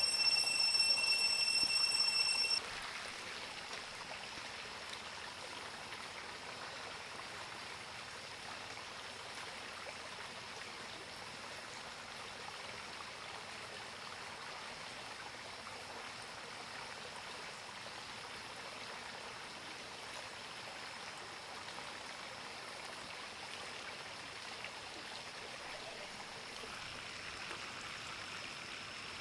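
Shallow river water flowing steadily over its bed. For the first couple of seconds a loud, steady, high-pitched whine sits on top of it and cuts off suddenly, leaving only the water.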